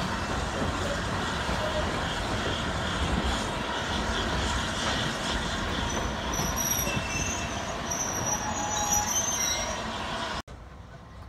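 Steam-hauled train of passenger coaches rolling out along the platform. Its wheels rumble steadily on the rails, and from about six seconds in there are high squeals from the wheels. The sound drops away suddenly near the end.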